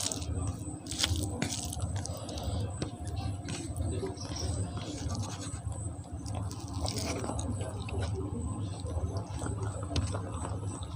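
Close-miked wet chewing and mouth sounds of a person eating rice and curry, with soft squishes and small clicks.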